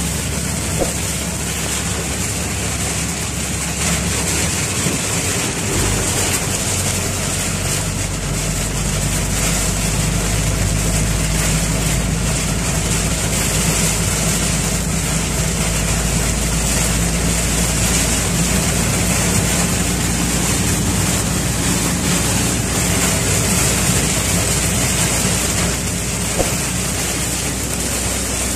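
Steady drone inside a vehicle driving on a highway in heavy rain: engine hum under an even hiss of rain and tyre spray on the wet road.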